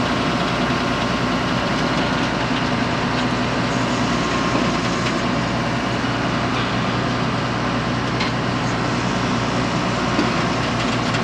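Combine's diesel engine running at a steady idle, with a few faint clicks over it.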